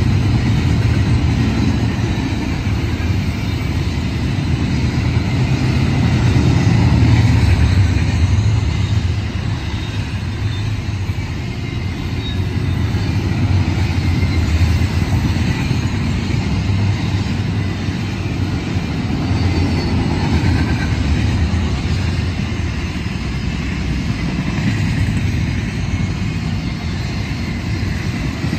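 Double-stack intermodal container train rolling past: a steady rumble of steel wheels on rail, swelling a little about seven seconds in and easing slightly after.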